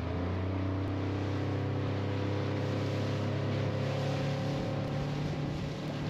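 Motorboat engine running steadily under way: an even, unchanging hum over a steady hiss.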